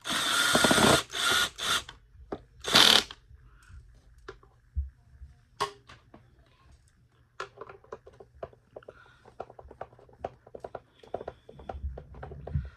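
Cordless drill driving screws into a vacuum's plastic housing in three short bursts in the first three seconds, followed by a run of light clicks and rattles of plastic parts being handled.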